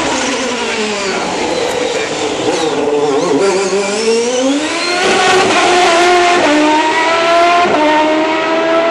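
Champ Car's turbocharged Cosworth V8 racing engine, loud, the note falling as the car slows for about three seconds, then climbing again as it accelerates away, with two upshifts near the end.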